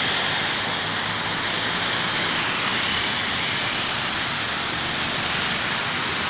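Steady roadside traffic noise: a constant hiss with a low rumble underneath, unchanging throughout.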